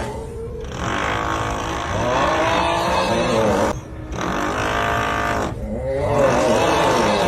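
A man's drawn-out 'uuuugghhh' snoring groan, repeated several times with short breaks, each groan wavering in pitch, over a steady electric drill running underneath.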